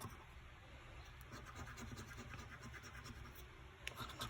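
Scratch card's scratch-off coating being rubbed off in quick short strokes, a faint rough scratching that grows louder near the end.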